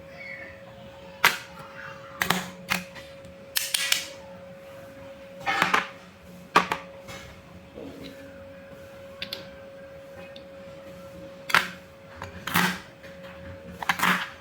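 Wooden toy fruits and vegetables being cut apart with a toy knife: about nine separate sharp wooden clacks and short scrapes at irregular intervals, over a steady faint hum.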